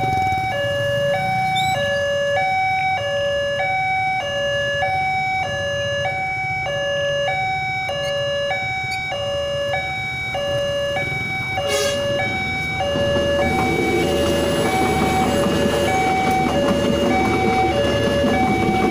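Railway level-crossing warning alarm sounding a steady two-tone electronic hi-lo signal, about one high-low pair a second. A sharp knock comes about two-thirds through, and then the rumble of a diesel railcar crossing the road joins the alarm.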